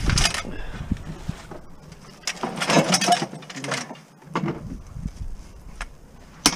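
Scrap and plastic bottles being handled while unloading the back of a van: irregular rustling and light clattering, densest about two to three seconds in, with a sharp knock just before the end.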